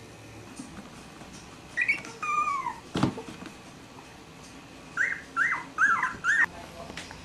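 Three-week-old Cavalier King Charles Spaniel puppies whimpering in high, squeaky cries: two about two seconds in, the second sliding downward, then a run of four short squeaks near the end. A single knock comes about three seconds in.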